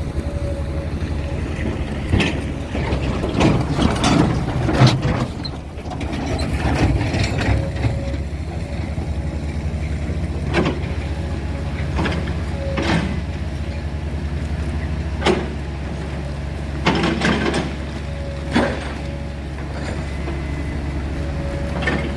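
Heavy diesel engine running steadily, with a cluster of clanks and knocks a couple of seconds in, then single knocks every few seconds.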